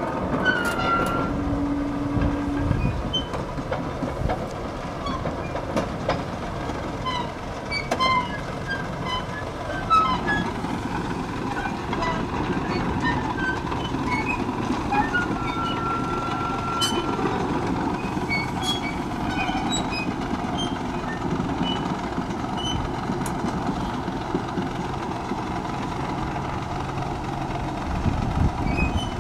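A small diesel shunting locomotive running steadily as it slowly moves a passenger carriage along the track, with short high squeaks scattered through and a brief held squeal about halfway.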